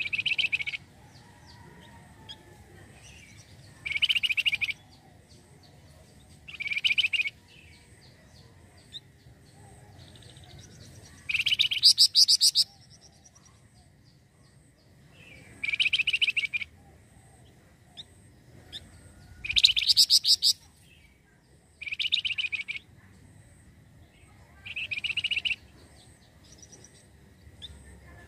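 Flamboyan (Javan fulvetta, wergan jawa) calling in about nine short, rapid chattering trills. Each lasts under a second to about a second, with a pause of a few seconds between them.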